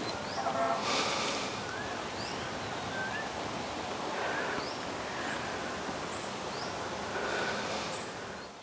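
Outdoor ambience: a steady hiss of background noise with birds giving short rising chirps every second or so. It fades out near the end.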